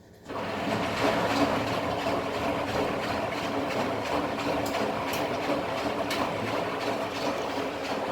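Candy Formula Inox P 7.71X washing machine running mid-cycle on a cottons wash: a steady rushing, whirring noise with a low hum in it starts suddenly and keeps going at an even level.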